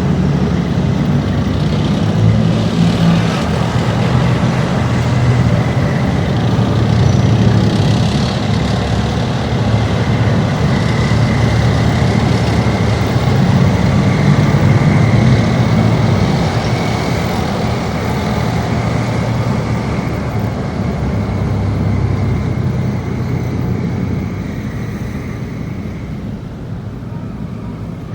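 Armoured military vehicles driving past, Marder tracked infantry fighting vehicles and then Boxer wheeled armoured vehicles, their diesel engines running loud with a deep rumble. A steady high whine sits over it through the middle, and the noise fades near the end.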